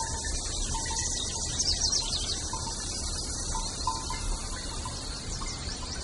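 Creek water running over rocks, a steady high hiss, with a few short, high, falling chirps about a second and a half in.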